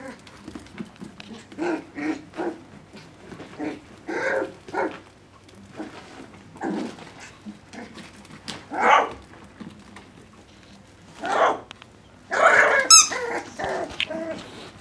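Young puppies barking and growling in short bursts as they play, the yaps coming irregularly a second or two apart, with a longer run of louder yelps near the end.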